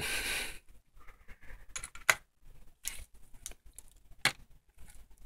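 Handling noise: a brief rustle, then about four light, sharp clicks and taps, spaced unevenly.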